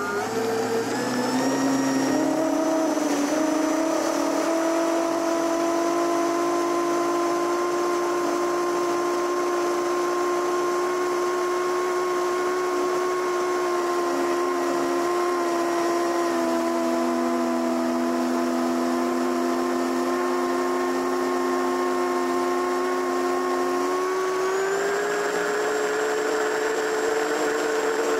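Onboard sound of an E-flite Piper Cherokee RC plane's brushless electric motor and propeller running on a 4S battery: a steady whine with several tones. It climbs in pitch over the first couple of seconds as the motor throttles up for the takeoff roll, holds through the climb-out, and rises again about 25 seconds in.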